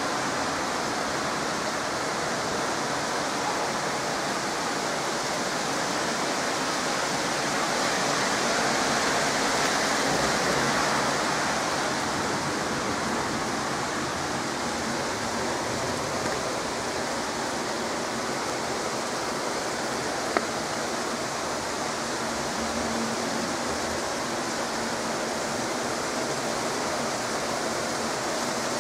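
Steady rain falling, an even hiss that swells a little about eight to eleven seconds in. A single sharp click about twenty seconds in.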